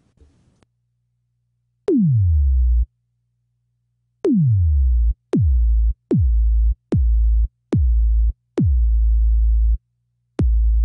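Logic Pro ES2 synthesizer playing a sine-wave kick drum note again and again, each note a click followed by a falling pitch sweep that settles into a deep held bass tone. The first two notes fall slowly; the later ones drop abruptly, about one note a second, as the pitch envelope's decay is lowered.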